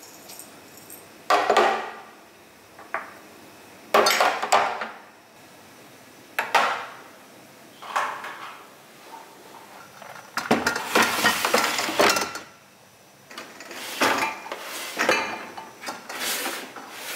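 Glass bottles and a glass jug clinking and knocking against each other and against hard plastic storage boxes as they are handled, with the loaded boxes set down on a countertop and a cabinet shelf. The knocks and clatters come one at a time every second or two, with a longer run of clattering just past the middle.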